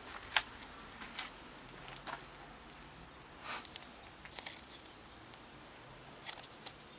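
Footsteps scuffing on gravelly dirt: a handful of soft, irregularly spaced crunches and clicks over a faint steady hiss.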